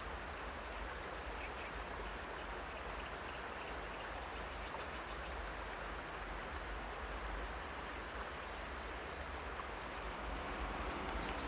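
Steady outdoor field ambience: an even hiss with a constant low rumble underneath and faint short chirps now and then.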